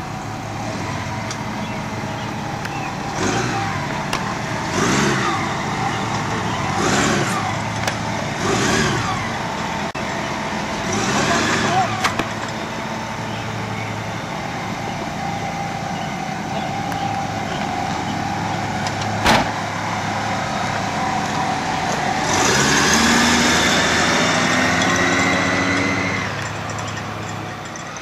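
A car engine runs steadily, with several short swelling noises over it in the first twelve seconds and a single sharp knock about nineteen seconds in. From about twenty-two seconds the engine revs up, rising in pitch, as the car pulls away.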